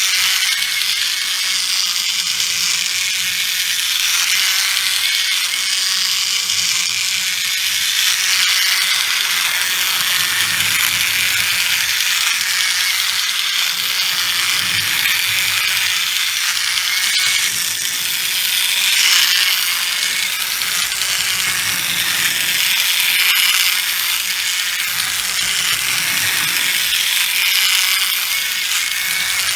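First-generation Plarail C-62 toy steam locomotive running, its small battery motor and plastic gears giving a steady mechanical whir.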